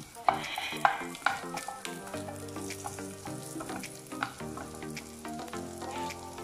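Diced pancetta sizzling as it fries in a nonstick frying pan on a gas hob, stirred with a wooden spatula.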